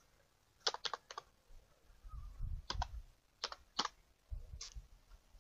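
Computer keyboard keys pressed one at a time in an unhurried, irregular rhythm: about eight separate keystrokes, in small groups with pauses between them.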